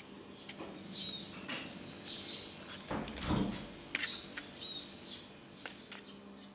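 A small bird chirping repeatedly, short high chirps about once a second. Under it, paper crinkles and rustles as a kitten bats a hanging paper bag, loudest about halfway through.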